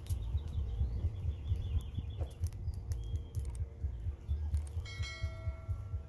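Open wood fire crackling over a low rumble, with faint quick bird chirps in the first two seconds. About five seconds in, a bell chime from a subscribe-button animation rings out and hangs on.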